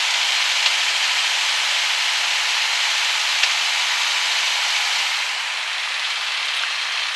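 Jabiru aircraft engine and propeller held at run-up power, about 1600 RPM, for a magneto check, heard as a steady hiss with little low end. About five seconds in a faint hum stops and the noise eases slightly.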